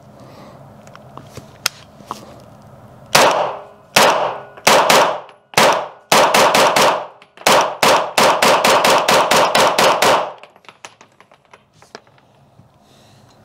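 9mm CZ Scorpion Evo 3 S1 pistol firing about two dozen semi-automatic shots. The first few are spaced out, then come in fast strings, several shots a second. Each crack rings on in the concrete range.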